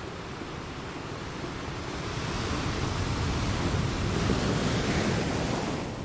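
Ocean surf, waves washing and breaking: the surge builds about two seconds in and falls away near the end.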